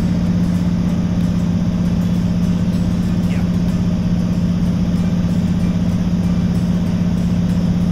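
Steady drone of a single-engine floatplane's engine and propeller in cruise flight, heard from inside the cabin as a constant low hum.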